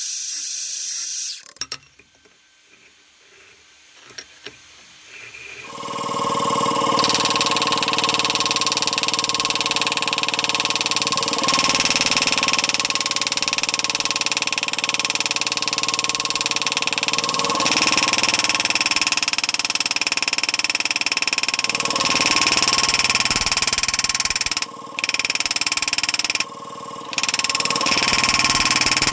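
A short hiss cuts off, and after a few clicks an electric drilling machine starts about six seconds in and runs steadily, cutting dimples into a layered steel billet to make a raindrop damascus pattern. It drops out briefly twice near the end.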